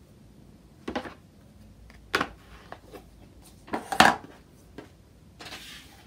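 A clear acrylic stamp block and craft pieces being handled and set down on a wooden desk: a few sharp clacks, the loudest about four seconds in, then a brief rustle near the end.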